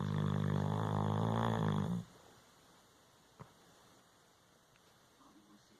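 A long, pitched snore that stops about two seconds in, then a quiet pause broken by one brief click.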